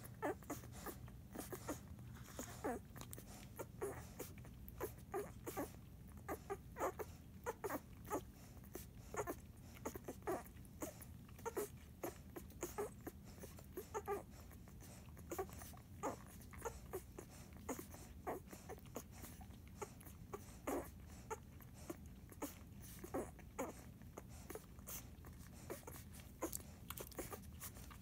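Nine-day-old Airedale terrier puppies grunting while nursing: many short, soft grunts in quick, irregular succession.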